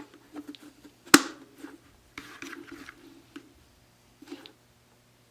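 Plastic parts of a Dyson DC29 vacuum canister being handled and fitted together by hand, with scattered rustles and knocks and one sharp click about a second in.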